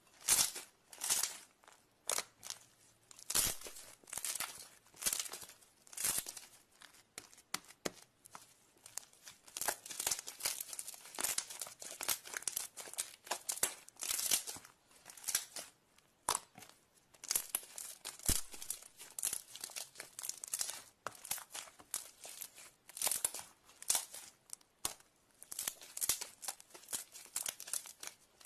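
Glitter slime being squeezed, stretched and folded by hand, making repeated short wet crackles of trapped air, irregular and about one or two a second.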